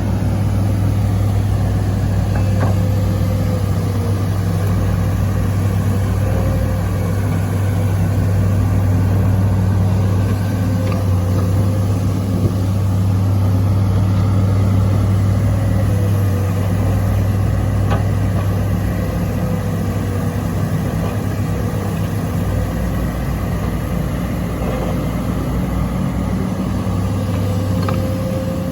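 Excavator's diesel engine running steadily under work, with a faint wavering whine above the engine note and a few light knocks.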